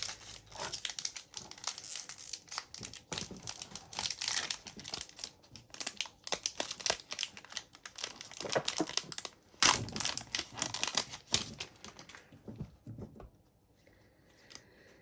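Foil trading-card pack being torn open and its wrapper crinkled, with cards shuffled in the hands: a run of irregular crackling and rustling that thins out near the end.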